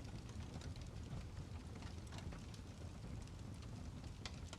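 Steady rain falling, with many separate drops ticking sharply over a soft wash of noise.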